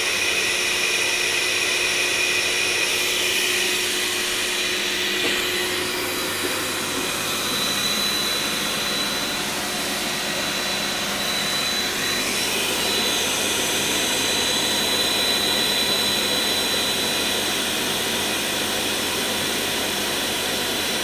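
Water-filter vacuum cleaner running steadily: a motor's high, even whine over rushing air as it draws air through its water chamber.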